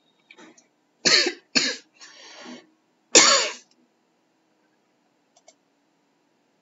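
A person coughing: two sharp coughs about a second in, a softer rasping breath just after, then a louder cough a little past three seconds.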